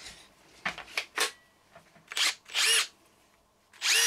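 Makita 18V cordless impact driver test-run with no load after reassembly. After a couple of light clicks, it gives short trigger pulls: the motor whines up quickly and holds its pitch for a moment each time, about three times.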